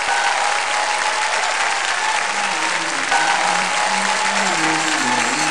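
Crowd applauding, with music under it: a held tone throughout and a low melody that comes in about two seconds in.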